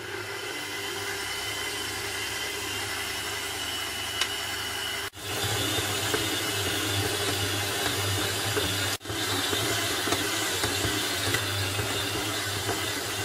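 Electric stand mixer running steadily as it mixes and kneads a stiff bread dough, a motor hum with a rough whirring on top. The sound drops out for an instant twice, about five and nine seconds in.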